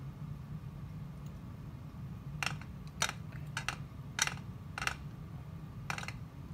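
Master altimeter on the test bench tapped lightly with a screwdriver handle, about seven sharp ticks over a few seconds, to free the pointer from friction before the scale-error reading. A steady low hum from the bench equipment runs underneath.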